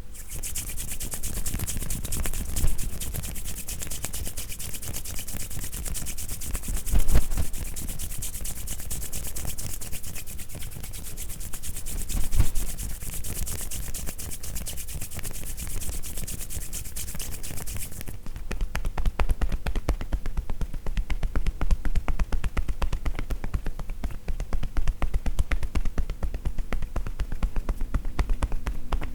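Tapotement massage: hands tapping rapidly and rhythmically on a person's body with a soft popping sound. The tapping is bright and hissy until about two-thirds of the way through, then turns duller and lower, with a few heavier pats along the way.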